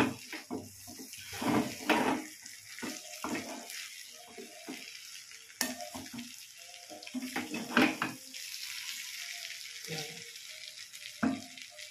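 Dry fish and vegetables sizzling as they fry in spices in a speckled nonstick kadhai, with a spatula stirring and giving irregular scrapes and knocks against the pan.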